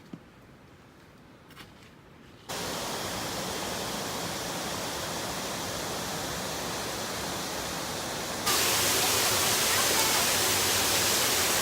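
Steady rush of falling water from a waterfall. It starts abruptly about two and a half seconds in, after near-quiet with a couple of faint clicks, and steps up louder a few seconds before the end.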